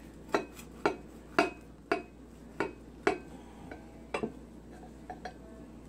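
Chef's knife sawing through a toasted flatbread sandwich, the blade knocking and scraping on the plate in a run of short sharp strokes about twice a second, growing fainter near the end.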